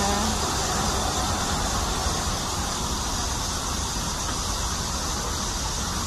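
Steady outdoor background noise: a continuous rushing hiss with a low rumble underneath, unchanging throughout.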